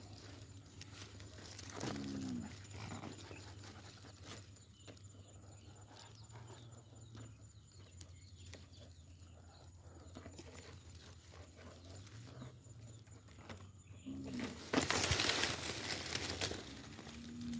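Cattle lowing a few short times, each call falling in pitch. About three-quarters of the way through comes a loud two-second burst of rustling noise.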